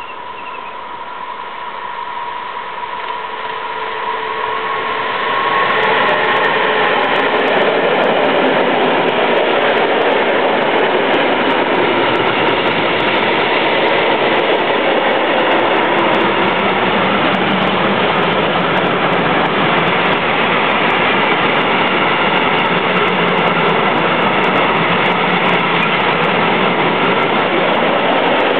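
Class 185 electric locomotive and its long freight train passing close by. The sound grows louder over the first six seconds or so as the locomotive comes past, with a faint steady whine. Then the hopper and tank wagons roll by with a steady, even noise of wheels on rail.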